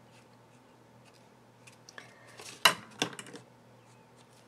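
A sheet of card being shifted and turned on a cutting mat: a brief rustle with a few sharp taps a little over two and a half seconds in. Faint scratching of a fine-tip pen on paper before and after.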